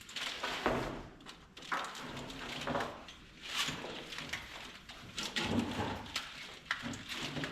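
Irregular rustling and scraping with light clicks and knocks: a wiring harness being handled and pulled into place in a truck's engine bay.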